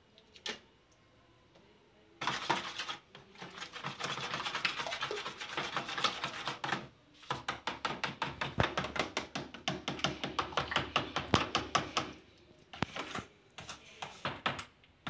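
Cake batter being mixed by hand in a plastic bowl, a runny mix of eggs, melted margarine and yogurt: a utensil rubbing and scraping round the bowl at first, then fast, regular beating strokes, several a second, with a few short pauses.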